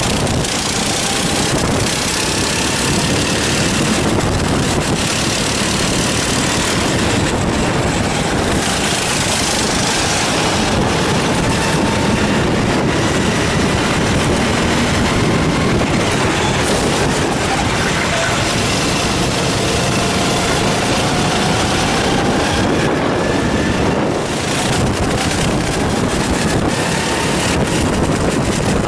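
Racing kart engine heard from an onboard camera, its pitch climbing and dropping again and again as the kart accelerates and slows through the corners, under a steady loud rushing noise.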